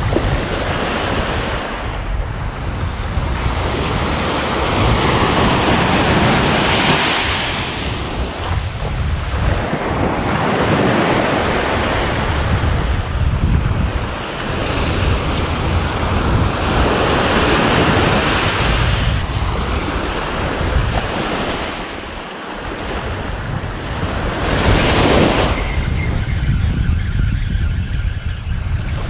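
Small waves washing up the sand at the water's edge and drawing back, the surf swelling and fading every few seconds, with wind buffeting the microphone as a constant low rumble underneath.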